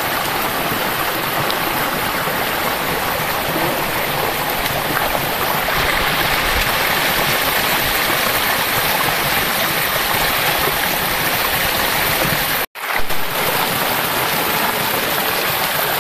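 Shallow forest stream running over rocks, a steady, even rush of water. The sound drops out for an instant about thirteen seconds in.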